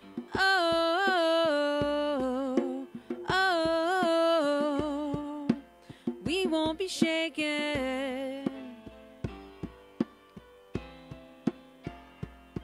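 Live worship band playing a contemporary worship song: long wordless 'oh' lines sung over drums in the first half, then a quieter instrumental passage of held notes and regular drum hits leading into the next verse.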